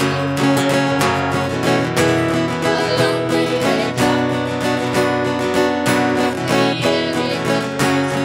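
Acoustic guitar strummed in a steady rhythm, with a woman singing along.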